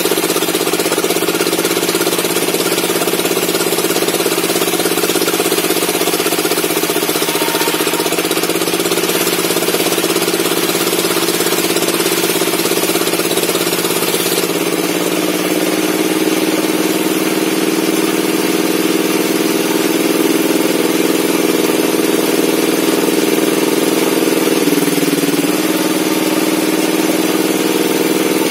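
Bench circular saw for sawing logs, running without a break; its motor sound sags in pitch for a moment a few times as the blade takes load in the wood. A high hiss from the cut drops away about halfway through.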